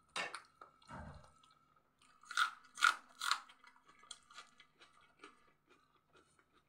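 A person eating up close, biting and chewing raw onion: three loud crunches between about two and three and a half seconds in, then softer chewing.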